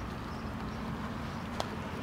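Steady low rumble of a car on the move, with a single sharp click about one and a half seconds in.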